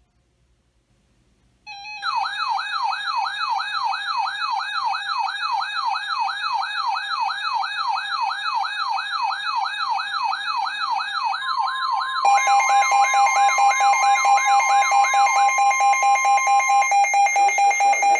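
Electronic alert siren wailing rapidly up and down, about three sweeps a second, starting about two seconds in. Later a steady tone joins it, and a fast pulsing beep at one pitch takes over as the wail fades.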